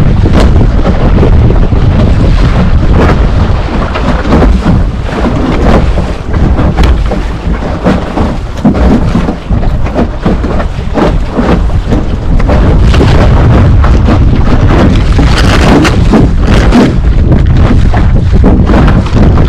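Wind buffeting the microphone of a deck-mounted camera on a small sailboat under way: a loud, gusty rumble that eases somewhat in the middle before picking up again.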